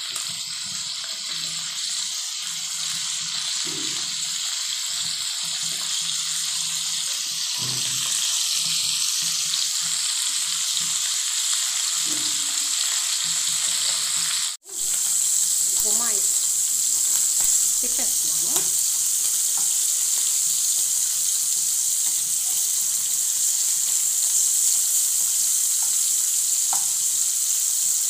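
Small dried fish sizzling steadily in hot oil in a frying pan, the heat just turned up. The sizzle grows a little stronger over time and cuts out for an instant about halfway.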